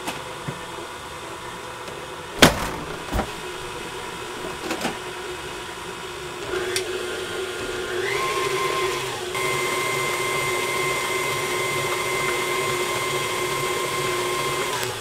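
Electric stand mixer running its flat beater through a bowl of honey, mixing crushed crystallized seed honey into liquid honey. The motor whine steps up in speed about six and eight seconds in and stops at the very end. Two sharp knocks, the loudest sounds, come about two and a half and three seconds in.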